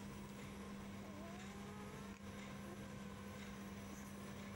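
A steady low hum, with a faint thin whimper from a newborn rough collie puppy, rising and wavering, between about one and two and a half seconds in.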